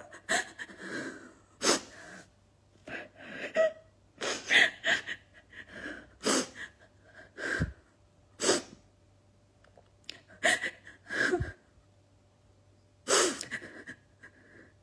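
A woman sobbing without words: about a dozen sharp, gasping breaths and sniffs, each short, with brief silences between them.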